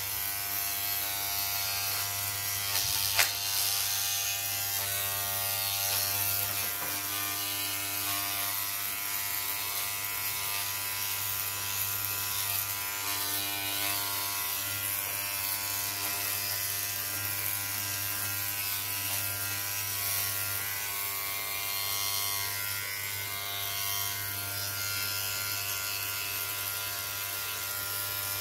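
Electric hair clippers buzzing steadily while trimming chin and neck stubble, with one sharp click about three seconds in.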